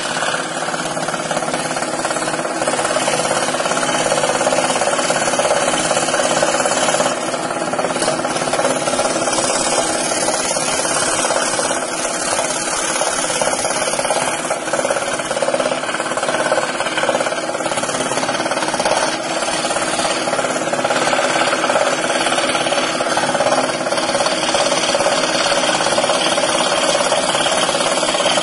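Scroll saw running steadily, its blade stroking up and down as it cuts through plywood along a glued paper pattern.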